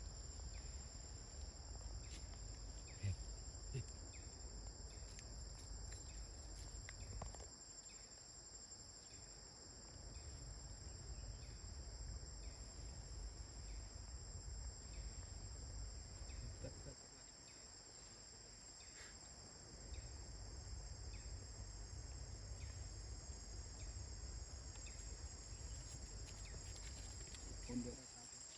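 Steady, high, continuous chorus of insects, with a low rumble underneath that drops out twice and a few faint clicks.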